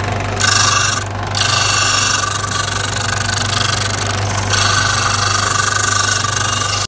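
Ferm bench disc sander running with a steady motor hum, and a hissing scrape whenever a small workpiece is pressed against the spinning sanding disc: about half a second in, again from about a second and a half, and strongest from about four and a half seconds on.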